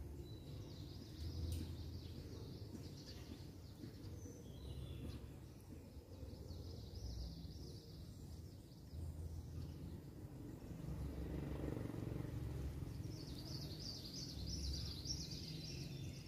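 Outdoor ambience: birds chirping over a low rumble, the chirping clearest near the start and again near the end.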